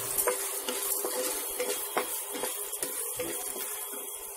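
Popcorn kernels being stirred with a spatula in hot butter in a nonstick pan. The kernels rattle and the spatula scrapes over a light sizzle. The clicks of the stirring come thickest in the first two seconds, then thin out and fade.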